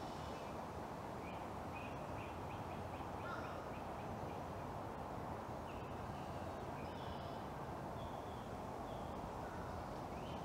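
Birds calling over a steady background hiss: a quick run of chirps about a second in, then several short, separate calls.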